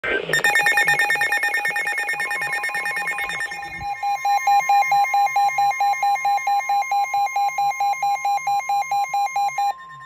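Several NOAA weather radios sounding their warning alarms together, a severe thunderstorm warning alert. Rapid electronic beeping is joined about three seconds in by the steady single-pitch NOAA warning alarm tone. The beeping cuts off near the end while the tone holds on.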